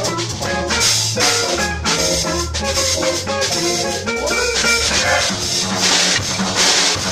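Jazz organ trio playing live: a Hammond organ with sustained low bass notes, a hollow-body electric guitar and a drum kit played with sticks and cymbals.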